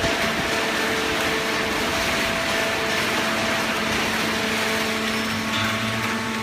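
Hydraulic paper baler running: a steady mechanical noise with constant hum tones over a hiss, a deeper hum joining about five and a half seconds in.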